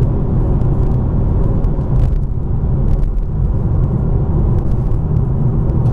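BMW M2 Competition under way on a damp road: a steady low rumble of its twin-turbo straight-six and tyre noise, easing off briefly about two seconds in.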